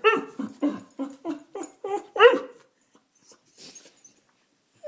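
A dog whining and yipping for food in a quick string of about ten short cries, roughly four a second, each bending in pitch. It falls quiet about two and a half seconds in.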